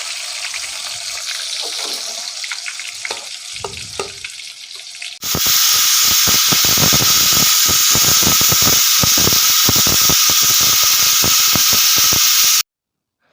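Sliced onions sizzling as they fry in hot oil in a kadai, with light stirring clicks. About five seconds in, a pressure cooker starts whistling, a loud steady jet of venting steam with a pulsing rattle, which cuts off abruptly near the end.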